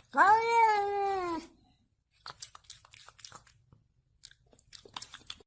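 A domestic cat's single long meow, rising quickly then sliding slowly down in pitch over about a second and a half, followed by faint, irregular clicks and crunches.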